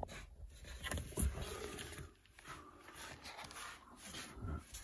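Handling noise: a few soft knocks and rustles, the clearest about a second in and near the end.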